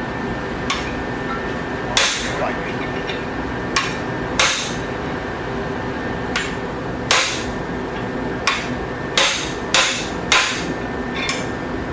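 Hand hammer striking hot knife steel on an anvil while forging a blade: about a dozen sharp, irregularly spaced blows, some in quick pairs.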